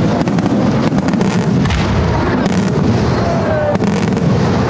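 Spanish-style professional fireworks display: a rapid, continuous barrage of aerial shells bursting with dense booms and cracks, no gap between them, and a few short whistles riding over the din.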